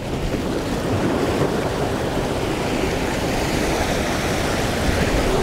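Ocean surf washing steadily against jetty rocks, with wind on the microphone.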